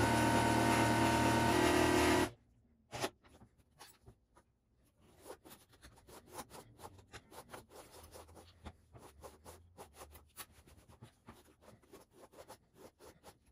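Sewing machine running steadily at speed, stitching, then stopping suddenly about two seconds in. A single click follows, then soft rustling and light ticking of the canvas being handled.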